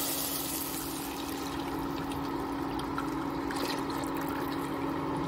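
Milk pouring in a steady stream into a steel pot of ghee-fried chopped nuts, a continuous trickling splash, with a steady low hum underneath.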